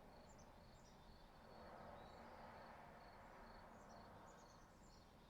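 Faint insect chirping, which the recordist takes for a cicada: short high chirps repeated at a steady pace over a low background hiss. A soft rushing swell rises and fades in the middle.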